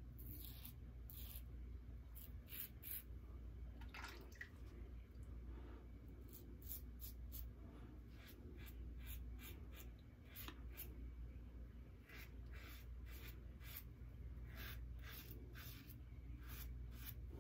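RazoRock Lupo .95 double-edge safety razor scraping through lathered stubble on the neck and chin: faint, short scratchy strokes, often several in quick succession, with short pauses between runs.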